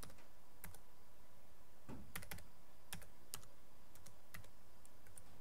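Computer keyboard keys being typed: about ten separate keystrokes at an uneven pace, over a steady faint hiss.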